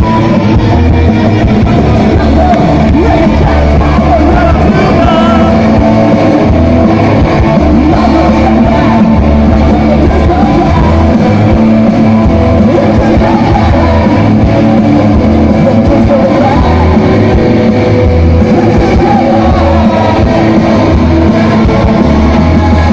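A garage punk band playing live and loud: distorted electric guitars, bass and drum kit, with a male singer shouting the vocals over them.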